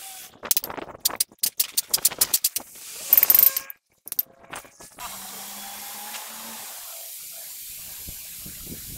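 Rapid metallic clicking and scraping at the truck's wheel hub. About five seconds in, a steady hiss of compressed air starts from an air hose held to the hub's centre hole.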